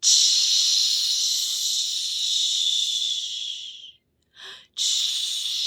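A woman voicing a long 'shh', the 'windy sound' speech cue for the SH sound, for about four seconds; then a quick breath and a second 'shh' starting near the end.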